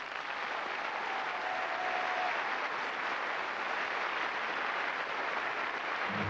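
An audience applauding steadily. Music begins right at the end.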